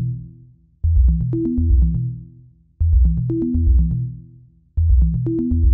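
Electronic background music: a deep bass and drum-machine beat in a phrase that repeats about every two seconds, with a brief drop between phrases.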